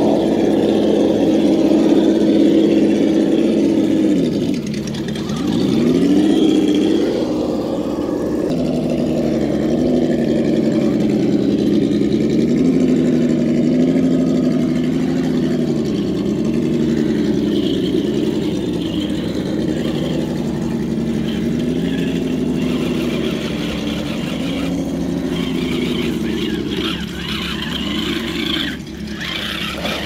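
Whine of a radio-controlled rock crawler's electric motor and gearbox, its pitch rising and falling with the throttle. It drops low and climbs back about five seconds in as the truck slows and pulls away again.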